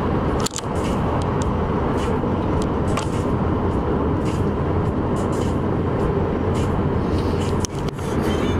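Steady road noise inside a moving car on a highway: tyre and engine rumble. It briefly drops out twice, about half a second in and near the end.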